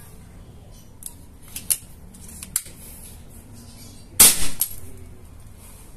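A few light clicks, then one sharp shot about four seconds in from an unregulated Extreme Tactical V4 PCP air rifle, firing a 10-grain pellet at about 1,020 fps.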